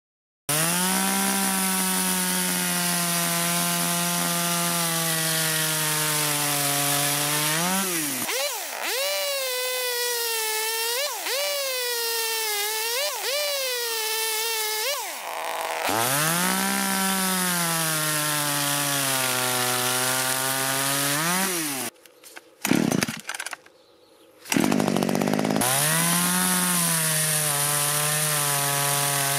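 Parkside PBBPS 700 A1 petrol pruning chainsaw, with a 25.4 cc air-cooled two-stroke engine, cutting through thick timber beams at full throttle. The engine pitch sags as the chain bites into the wood and rises again as it frees, over and over. The sound drops out briefly about three quarters of the way through.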